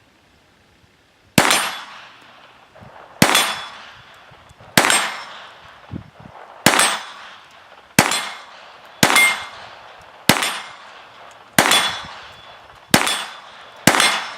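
Ten shots from a Browning Buck Mark .22 LR target pistol, fired one at a time about a second and a half apart, each a sharp crack with a short fading echo.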